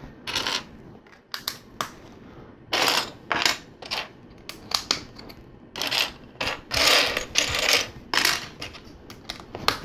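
Loose plastic LEGO pieces clicking and clattering as they are rummaged through and picked out by hand, with irregular sharp clicks and short rattling bursts.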